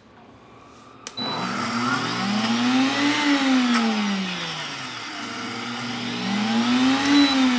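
Countertop blender starting with a click about a second in, then running and grinding crushed pork rinds and almond flour into a fine breading powder. Its motor pitch rises and falls twice.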